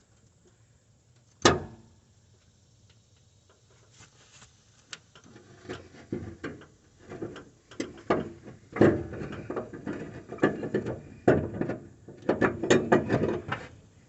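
Metal hand-tool work on a mower deck's spindle. One sharp clank comes about a second and a half in, then from about four seconds a run of short clicks, knocks and scraping strokes that grows busier toward the end.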